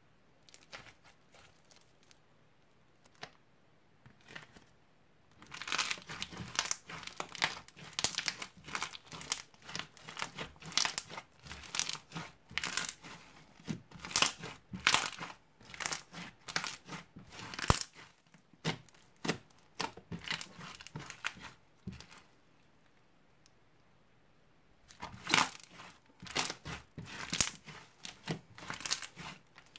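Crunchy slime with small beads mixed in, kneaded, squeezed and pressed by hand, giving rapid crackling clicks and pops. A few scattered clicks at first, dense crackling from about five seconds in, a pause of a few seconds near the end, then dense crackling again.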